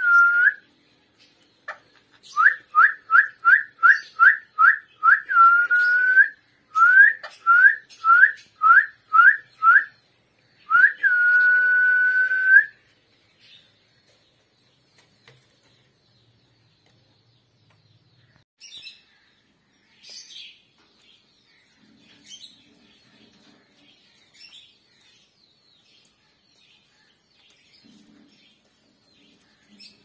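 A run of short, clear whistles, each sliding up and then held, about three a second. The run ends in one longer held whistle about halfway through, and after it only faint chirps are heard.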